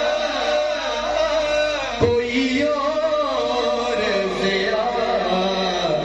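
A man singing an Urdu naat into a microphone, drawing out long, wavering melodic lines.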